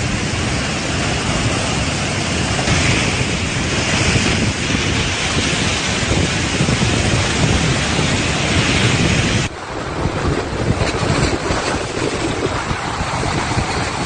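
Heavy storm surf crashing against a seawall and washing across a paved seafront, with strong wind buffeting the microphone. The sound drops suddenly about two-thirds of the way through, then the surf and wind go on a little quieter.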